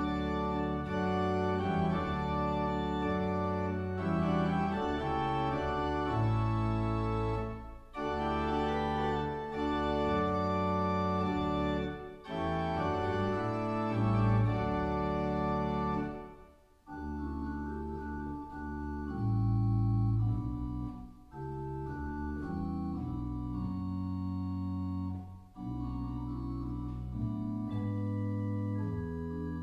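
Church organ playing sustained chords over a deep bass, in phrases with short breaks every four or five seconds, growing softer about halfway through.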